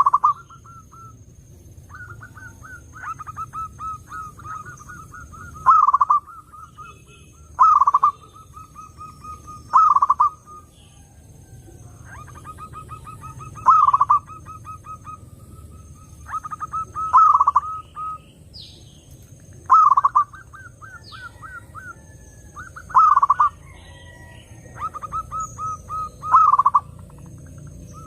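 Zebra dove (perkutut) cooing: quick runs of short staccato coos, broken every two to three seconds by a louder, longer coo that drops in pitch at its end.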